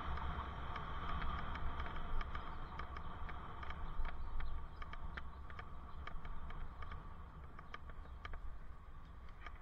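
Bicycle ride heard through a helmet-mounted camera: a steady low wind and road rumble with many scattered small clicks and rattles. The rumble eases somewhat in the second half.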